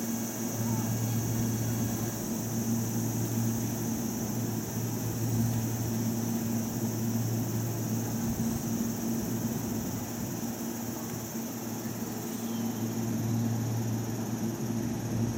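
Stationary Keihan electric trains humming at the platform, a low steady hum from their onboard auxiliary equipment that swells and eases, with a steady high buzz over it.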